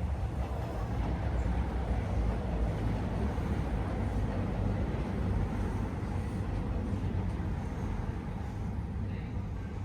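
Diesel railcar engine running with a steady low rumble.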